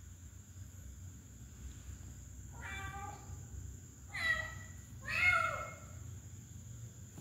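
Tabby kitten meowing three times in quick succession, the third meow the loudest.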